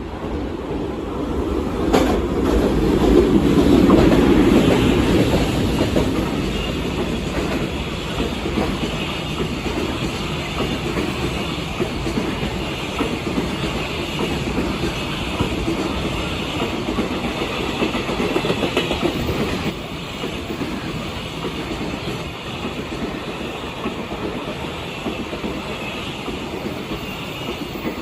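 A train passing over a level crossing, its wheels clattering over the rail joints. It builds to its loudest a few seconds in, with a sharp knock just before, then runs on steadily and drops a little about twenty seconds in.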